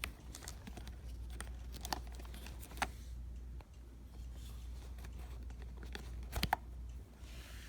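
Light handling of a resin ball-jointed doll: a few scattered small clicks and soft rustles as its joints are moved, the loudest pair near the end, over a low steady hum.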